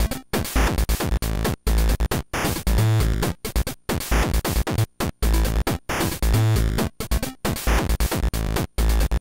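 Background music over the montage: a looping track with deep bass hits and abrupt stuttering cuts to silence, the same short figure repeating about every three and a half seconds.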